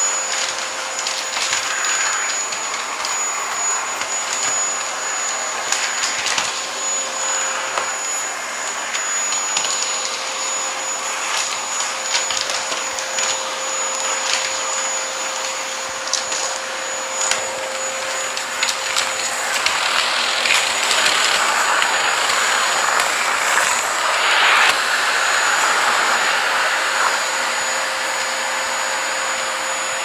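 Stick vacuum cleaner running steadily, a rushing of air with a constant whine, as its head is pushed back and forth over a shaggy rug, with scattered clicks and knocks.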